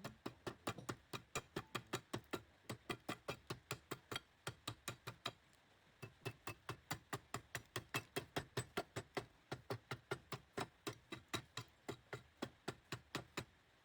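A steady run of sharp ticks, about five a second, with a short pause about five seconds in.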